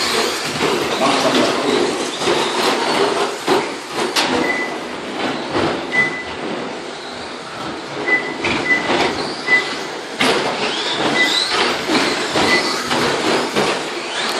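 Several radio-controlled electric short course trucks racing on a carpet track: motor whine rising and falling as they speed up and slow down, with tyre noise and many sharp knocks from landings and hits against the track edges. Short high beeps come several times in the middle.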